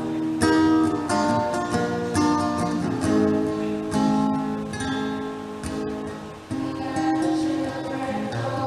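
Music led by strummed acoustic guitar, with chords that change every second or so.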